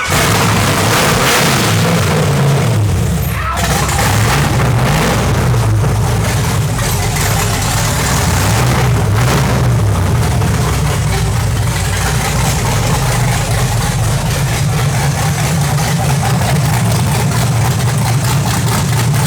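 Freshly rebuilt LS V8 running loud on open headers on its first run. It is revved up and down several times, then settles into a steady idle about twelve seconds in.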